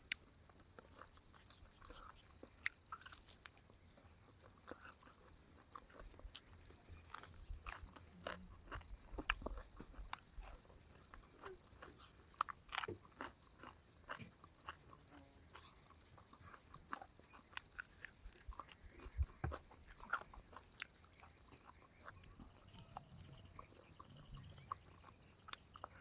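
A person eating and chewing food, with faint irregular biting and crunching clicks, over a steady high-pitched background drone.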